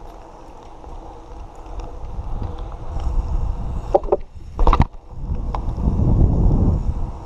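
Wind rumbling over an action camera's microphone as a BMX bike rolls along a wet road, louder in the second half, with a brief sharp clatter a little past the middle.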